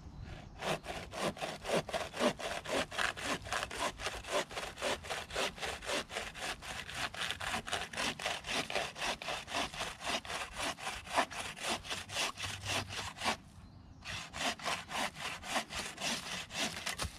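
Homemade bow saw, a bow saw blade sprung onto a bent stick frame, cutting wood in quick, even back-and-forth strokes, about four a second. The strokes break off briefly a little after three-quarters of the way through, then start again.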